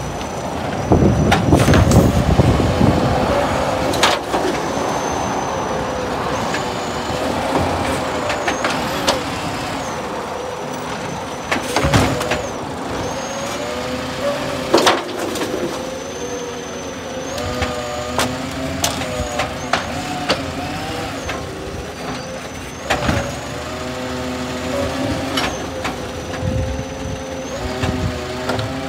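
Side-loader garbage truck at work: its engine running and its hydraulic lifting arm whining as it rises and falls, the pitch going up and down with each cycle. Several sharp bangs come as wheelie bins are tipped and knocked against the hopper, with a burst of air hiss about a second in.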